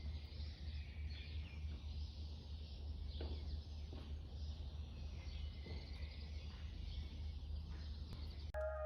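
Outdoor ambience: a steady low rumble with faint, high, thin chirping over it. Mallet-percussion music tones come in near the end.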